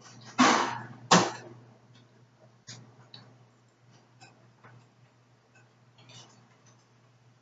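Fork clicking and tapping lightly against a plate as shells and cheese are scooped up, in scattered short clicks. About half a second and again a second in come two loud short bursts of noise, the loudest sounds here.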